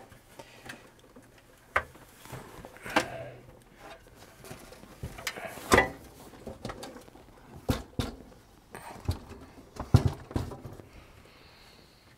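Steel case of a Commodore 8050 dual floppy drive being turned over and set back down on a workbench: scattered knocks, clunks and scrapes, the loudest about six and ten seconds in.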